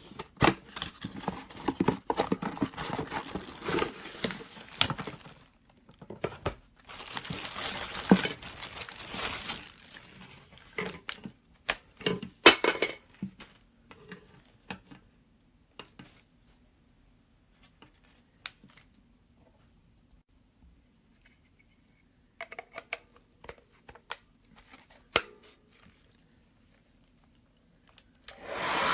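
Crinkling and rustling of packaging being handled, in dense bursts with small knocks and clicks, thinning out to occasional clicks after about fourteen seconds; at the very end a hair dryer switches on.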